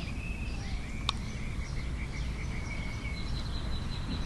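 Outdoor ambience: birds chirping and long, steady high-pitched insect or bird calls over a low rumble, with one sharp click about a second in.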